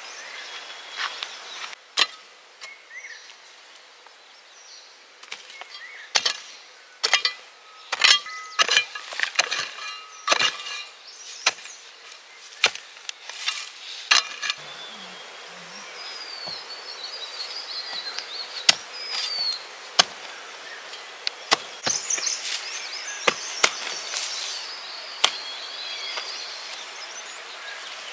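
A blade chopping on wood: sharp, irregular strikes, coming quickly in bursts through the first half and more spaced out later.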